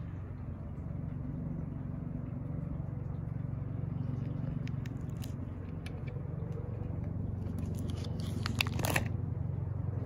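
Plastic photo-album sleeves crackling as they are handled, with a page turned near the end in a loud crackling rustle, over a steady low hum.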